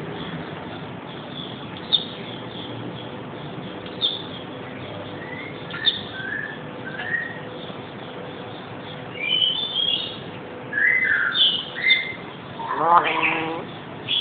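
Black-capped lory calling: short, sharp high chirps and whistles every couple of seconds, then a quicker run of calls in the last few seconds, ending in a louder, lower call.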